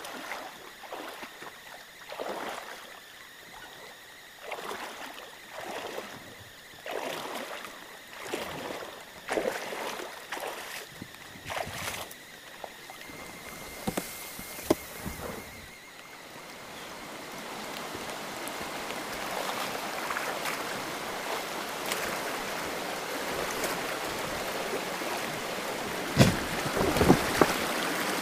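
Kayak paddle strokes splashing in a creek, roughly one a second, then a steady rush of moving water that grows louder from about halfway through, with a few sharp knocks near the end.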